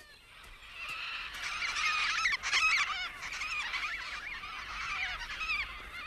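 A flock of Major Mitchell's cockatoos calling, many wavering, quavering calls overlapping. The calls build up about a second in and are densest around the middle.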